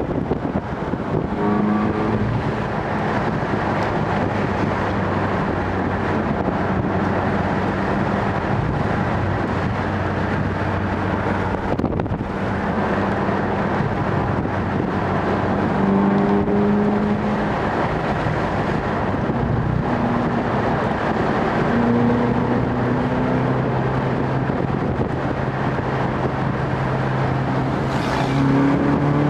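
Ferrari California's 4.3-litre V8 heard from inside the cabin on the move, a steady engine note over road and tyre noise. The engine pitch shifts several times and steps up in the last third as the car picks up speed.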